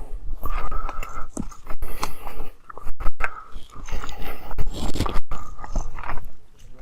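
Footsteps on loose rock while scrambling up a boulder field: irregular crunches, scrapes and sharp knocks, some from the handheld camera being jostled.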